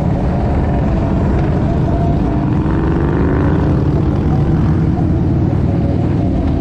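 Motorcycle engine running steadily at highway speed in a pack of motorcycles. A tone that rises slightly in pitch comes in about three seconds in.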